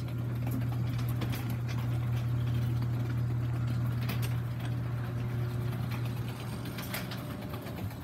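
Garage door opener running as it raises the sectional door: a steady motor hum with scattered clicks from the door rolling up its tracks. It fades near the end as the door reaches fully open.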